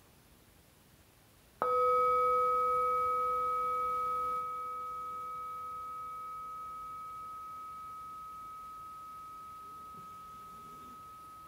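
Metal singing bowl struck once with a mallet about one and a half seconds in, then ringing on in a long, slowly fading tone, a lower and a higher note sounding together.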